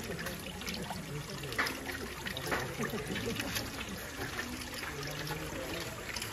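Shallow spring water trickling steadily over stones, with faint voices in the background.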